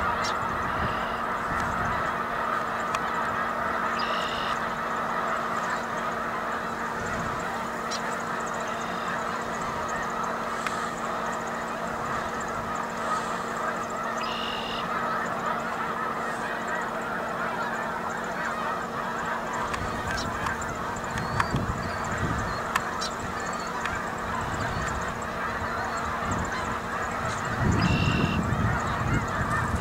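A large flock of snow geese calling all at once, a dense, steady din of overlapping honks. A low rumble joins in near the end.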